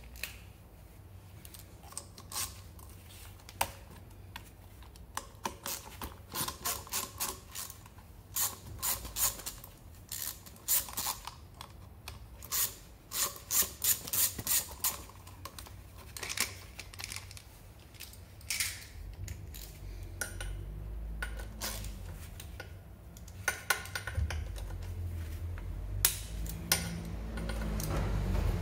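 Sharp metallic clicks and rattles of hand tools and fasteners as the plastic cooling fan is taken off the magneto flywheel of a Peugeot Kisbee 4-stroke scooter engine, some clicks in quick runs. A duller rumble of handling builds near the end.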